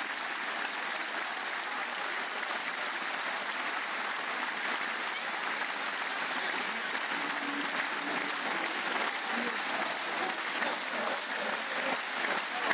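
Large stadium crowd applauding, a dense, steady clapping that swells slightly toward the end, with scattered voices in it.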